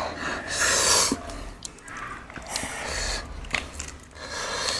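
Close rustling and handling noises of lettuce leaves and pieces of boiled pork being picked up and folded together by hand, with a few light clicks.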